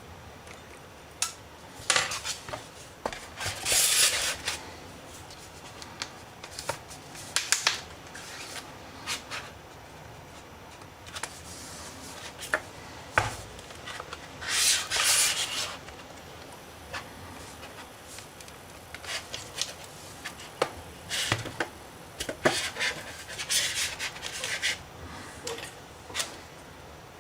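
Tool scraping along the seam of a ZTE E9Q+ tablet's plastic case as the back cover is pried open, in several short bursts of scraping with sharp clicks in between.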